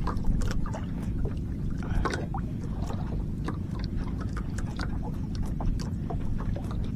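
Freshly caught small fish dropping onto a boat's floor and flapping, making scattered light taps and slaps, over a steady low rumble.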